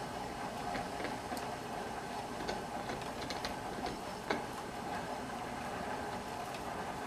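Hand-cranked ball winder whirring steadily as it winds yarn drawn off a spinning yarn swift, with scattered light clicks.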